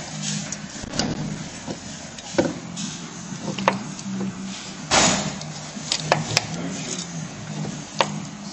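Lada Kalina front suspension knocking: sharp, irregular knocks over a steady low hum, the loudest about five seconds in. The owner blames the knock on the new strut support bearing.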